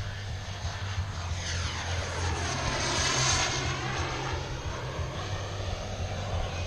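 Elite Aerosports Havoc radio-controlled model airplane making a fly-by: its engine sound swells to a peak about three seconds in, then fades as it passes and moves away.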